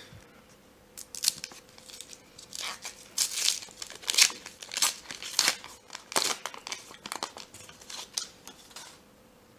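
Foil wrapper of a trading-card pack crinkling and tearing as it is ripped open by hand, in a run of irregular crackly rustles and rips.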